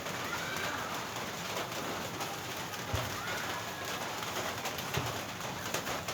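Birds calling over a steady background hiss, with two soft thumps about three and five seconds in.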